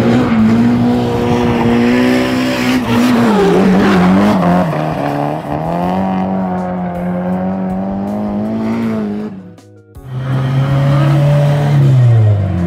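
A drift car's engine held high in the revs, its pitch wavering as the car slides through a corner with tyres squealing. It breaks off abruptly about ten seconds in, and a second drift car's engine takes over; its note falls near the end.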